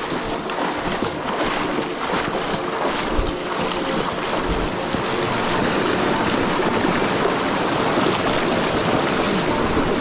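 Rushing river water, a steady dense noise that grows a little louder over the first few seconds and then holds.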